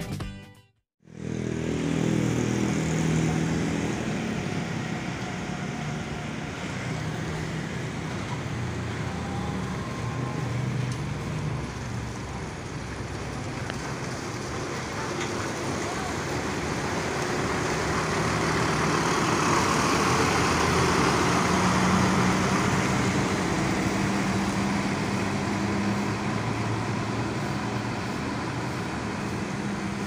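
Coach bus engine running at idle amid traffic noise and faint voices, swelling louder about eighteen seconds in.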